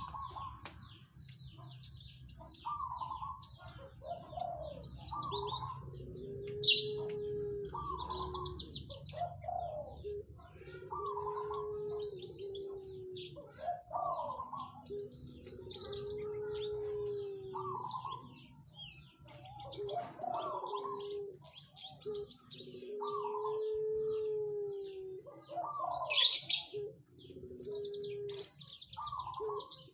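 Branjangan (Javan bush lark) singing a varied song of fast high chirps and trills over low cooing notes that repeat every couple of seconds. Two loud harsh bursts come about seven and twenty-six seconds in.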